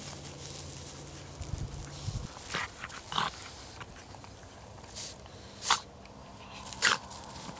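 Flat-faced bulldog-type dogs snorting and snuffling as they sniff each other: a handful of short snorts, the two loudest in the second half.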